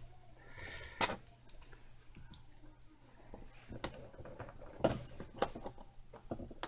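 Small metallic clicks and taps from the parts of a Marryat MR7A fly reel as its cover is fitted and worked into place with a fine pick. The sharpest clicks come about a second in and twice near five seconds in.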